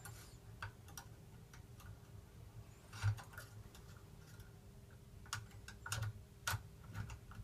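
Irregular small clicks and taps of a curtain lock pick being handled and fitted at a 5-lever mortice lock, a few sharper knocks about 3 seconds in and again near the end.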